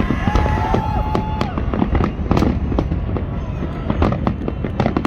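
Fireworks going off: a rapid, uneven run of sharp bangs and crackles, with a held high tone in the first second or so.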